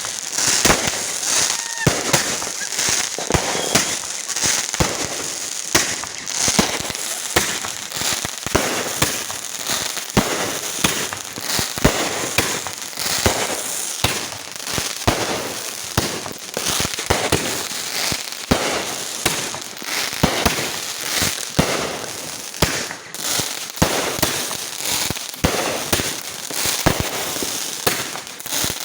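Fireworks going off in a continuous barrage: many sharp bangs a second over steady crackling, without a break.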